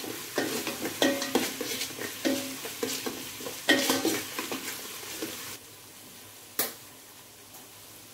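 Pounded shallot, garlic, ginger and chilli paste with curry leaves sizzling in hot oil in an aluminium pot, stirred with a spatula that scrapes and knocks against the pot. About five and a half seconds in, the sizzling and stirring drop away, and a single sharp clack follows about a second later.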